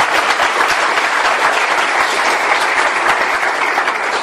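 Audience applauding, a dense steady clapping, after a speech ends.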